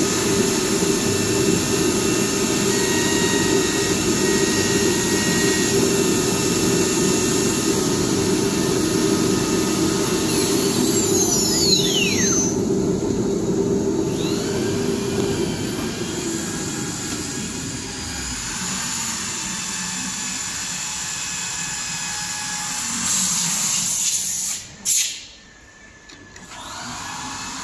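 CNC router spindle running and machining a panel: a steady, loud machine noise with several high whining tones. About ten seconds in, a whine falls steeply in pitch as the spindle winds down, and the noise then settles lower. Near the end there is a short burst of hiss and a single sharp bang.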